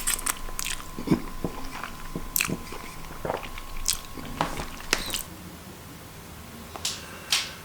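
A person chewing and biting a mouthful of noodles close to the microphone, with scattered short wet smacks and clicks.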